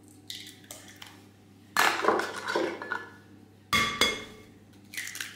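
Eggs being cracked against the rim of a glass mixing bowl: two sharp knocks on the glass about two seconds apart, with lighter clicks and taps between them.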